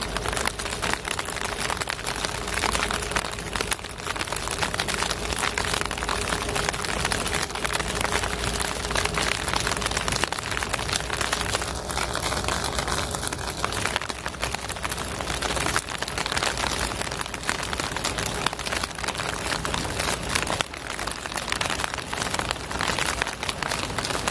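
Steady rain pattering, with a faint steady hum in the first half and a brief higher tone about halfway through.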